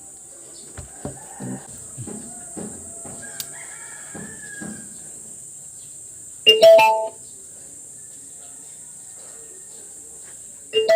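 Light knocks and handling sounds, then two short, loud pitched calls or chimes about four seconds apart, over a steady high hiss.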